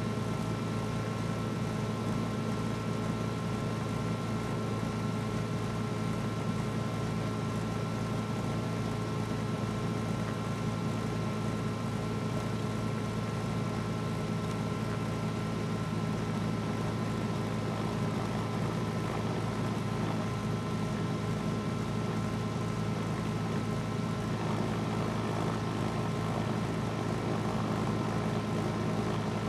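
Cessna 310's twin piston engines running at low power while taxiing: a steady drone with a fast low pulse.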